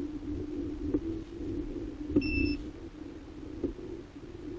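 HEXA hoverboard's hub motors humming steadily as its footpads are pressed and tilted by hand, with the board working normally after repair. One short electronic beep from the board sounds about two seconds in.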